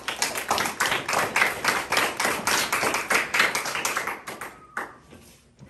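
A group clapping: dense, fast hand claps that fade out about four and a half seconds in.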